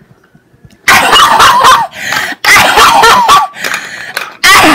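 A person's voice making loud, raspy, wordless noises in three bursts, starting about a second in, the pitch wavering and gliding: a puppeteer voicing a patient's garbled answer.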